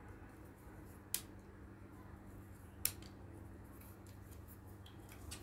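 Two sharp clicks nearly two seconds apart as stiff cut-out pieces of a flat-pack kit are handled and fitted together, over a faint steady low hum.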